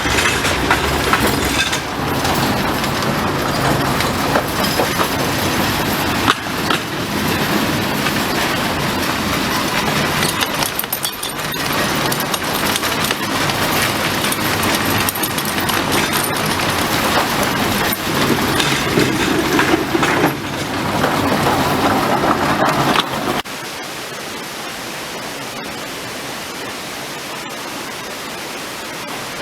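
A train of small unmanned ore cars rolling on a narrow mine railway, a dense metallic clattering and rumbling over the rails. About 23 seconds in it cuts off abruptly, leaving a steady rushing hiss.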